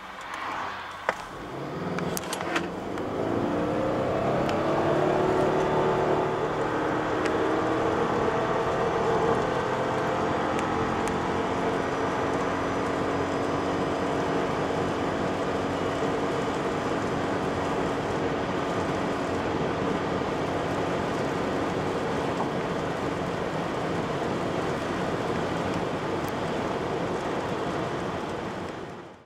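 Subaru Levorg 1.6 GT-S's turbocharged 1.6-litre boxer four under full throttle from a standstill, heard from inside the cabin. The revs climb over the first few seconds, then the CVT holds them steady near 6,000 rpm while the car keeps gaining speed to about 167 km/h. A couple of sharp clicks come in the first seconds.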